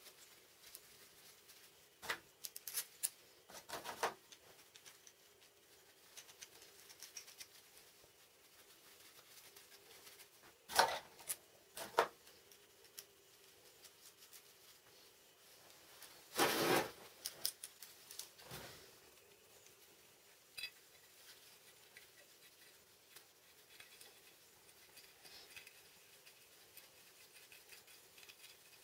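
Small steel bolts, nuts and bearings clicking and scraping against each other as gloved hands thread them together, with a few louder clatters around the middle.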